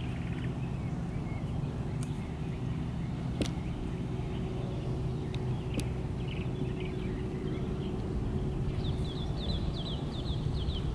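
Outdoor ambience: a steady low rumble with a faint hum, a few sharp clicks, and a bird's quick run of high chirps near the end.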